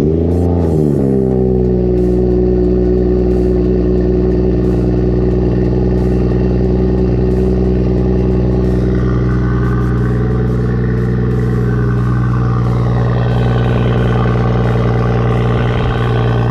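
BMW 440i's B58 turbocharged inline-six engine just after starting: the start-up flare drops away in the first second or so, and the engine settles into a steady idle.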